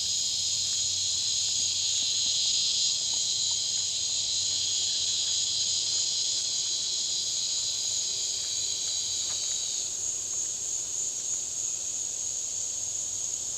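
Steady, high-pitched insect chorus, a continuous buzz with no breaks. A second, lower-pitched part of the chorus drops out about ten seconds in, leaving the higher one.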